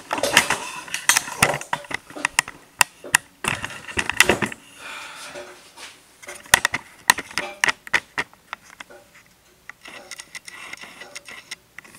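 Irregular knocks, clicks and clatter of hand tools and parts being handled at a workbench. They are busiest in the first few seconds and thin out to scattered taps toward the end.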